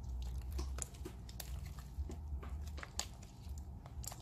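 Hands squeezing and kneading sticky slime mixed with small beads, giving irregular wet clicks and crackles.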